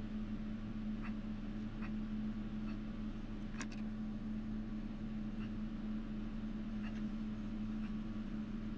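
A steady low hum from a running fan or motor, with a few faint light ticks scattered through from small sculpting tools and clay being handled.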